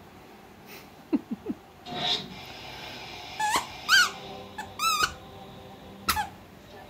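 Squeaker in a plush lamb toy being chewed by a Labrador puppy: three short, low squeaks about a second in, then a run of louder, higher squeaks that swoop up and down in pitch.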